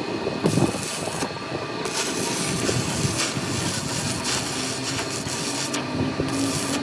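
Workshop machinery running steadily, with a high hiss that comes and goes several times, typical of a tool cutting or grinding metal.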